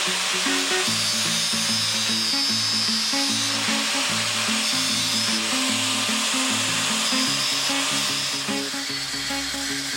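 Background music with a stepping bass line over the steady high whine and hiss of a power tool working steel rod.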